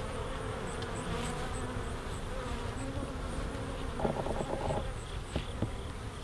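Honeybees buzzing as they fly around the hive entrances, their flight tones wavering in pitch as bees pass close, over a low rumble.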